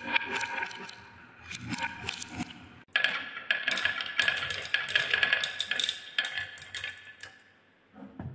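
Glass marbles rolling on wooden marble-run tracks, a dense run of quick clicks and rattles as they knock into each other and the wood. The clatter changes abruptly about three seconds in, and there is a low knock near the end.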